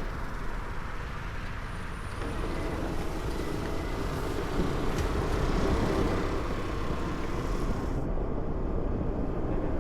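Steady vehicle and road noise with a low rumble.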